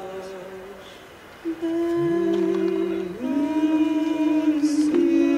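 Two women's voices singing long held notes in harmony, unaccompanied. The voice fades briefly about a second in, a lower voice joins about two seconds in, and both slide up together to new notes about three seconds in.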